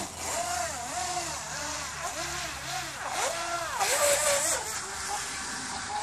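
Electric motor of a radio-controlled speedboat whining on the water, its pitch rising and falling again and again about twice a second, with a brief hiss about four seconds in.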